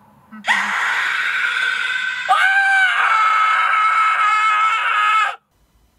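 A loud, high-pitched human scream that starts about half a second in, grows louder with a sharp bend in pitch about two seconds in, holds, then cuts off abruptly after about five seconds.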